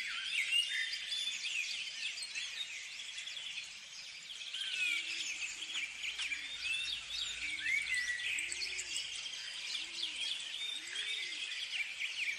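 Many birds singing and chirping together, with overlapping quick calls and swooping notes, and a low call repeated about once a second in the second half.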